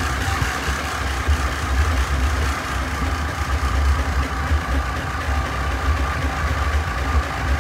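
Tractor engine running steadily, a low even rumble with no change in speed.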